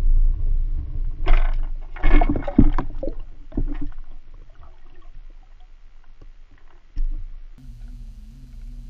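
Underwater water noise picked up by a submerged camera: a low rumble with several gurgling, splashy bursts in the first four seconds and another at about 7 s. A steady low hum with a slight waver starts near the end.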